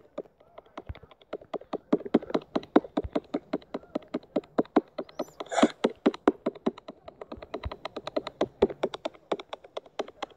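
Rapid key clicks from typing on a smartphone touchscreen keyboard, about four taps a second. A short hiss comes about halfway through.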